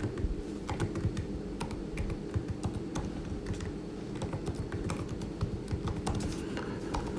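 Typing on a computer keyboard: irregular keystroke clicks, several a second, over a low steady hum.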